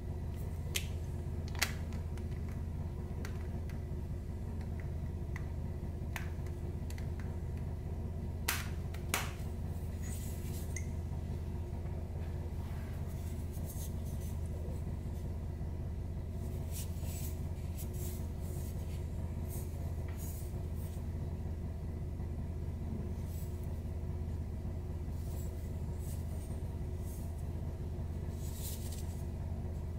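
Light clicks and taps of fingers handling a perfume bottle and its cap, the sharpest twice near the start and twice about eight to nine seconds in, over a steady low background hum.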